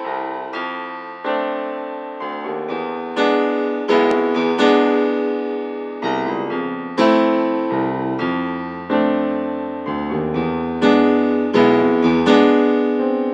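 Background music: a piano-like keyboard playing slow chords, each struck and left to fade before the next, about one a second.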